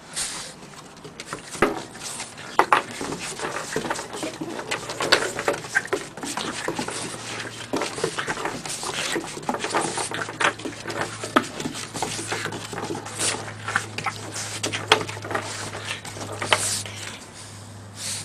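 A French bulldog playing excitedly with a Greenies dental chew: many quick, irregular clicks and taps.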